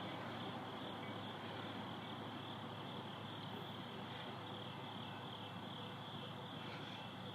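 Crickets trilling steadily in a high, continuous band, over a faint low background rumble.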